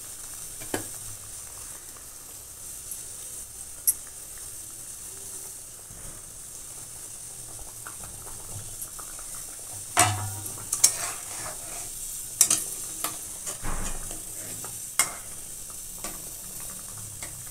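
Mustard gravy bubbling and sizzling in a wok, a steady hiss, while pabda fish are laid in and a spatula scrapes and clinks against the pan. Most of the clinking comes in the second half.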